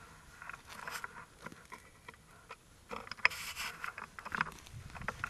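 Irregular rustling and crunching of brush and dry leaves from movement through a thicket, with scattered light clicks. A sharper knock or snap comes about three seconds in.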